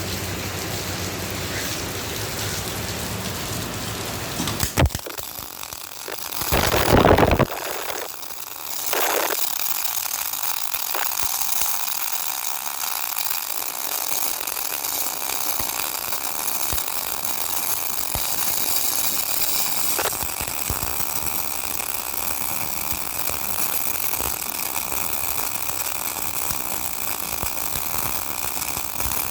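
MIG welding arc from a 350 A MIG welder, running steadily with an even sizzling crackle. Several short louder bursts come between about 5 and 9 seconds in, as the arc is struck and stopped.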